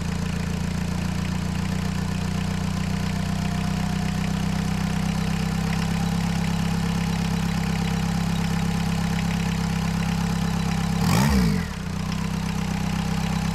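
VW Rabbit 1.6-litre four-cylinder turbodiesel idling steadily while its injection pump's idle speed screw is turned back. About eleven seconds in, the engine briefly revs up and drops back to idle.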